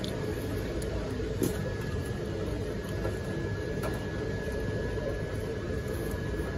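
Steady background hum of a large shop's ventilation, with a faint high whine running through it and a couple of light clicks.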